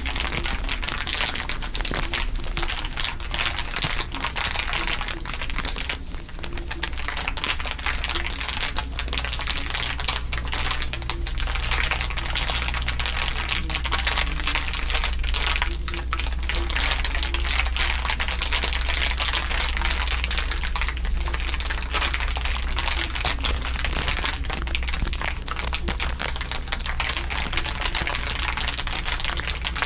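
Dense, continuous crinkling from several layered crinkle tracks, a constant rapid crackle of many small clicks, over a steady low hum.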